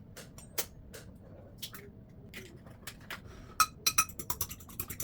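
Light kitchen clicks, then a quick run of ringing clinks about three and a half seconds in: a utensil knocking against a glass bowl.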